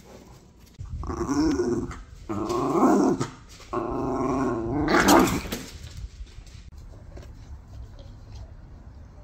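A Jack Russell terrier growling in play while tugging on a plush toy: three growls of one to two seconds each, the last one the longest.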